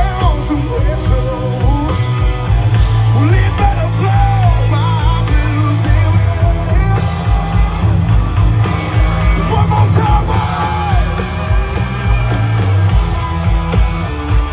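Live country-rock band playing loudly, with a singing voice gliding over a heavy steady bass and drums, heard through a phone microphone in the crowd.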